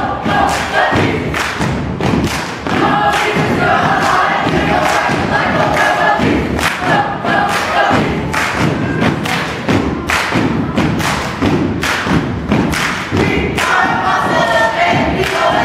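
Group voices singing or chanting in unison over a steady beat of heavy thumps, for a stage dance routine.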